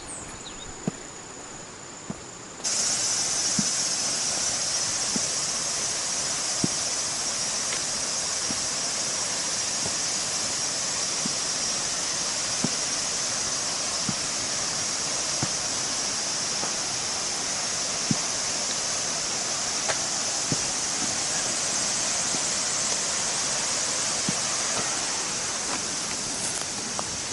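Steady hiss of rushing stream water, coming in abruptly about two and a half seconds in, with faint taps about every second and a half.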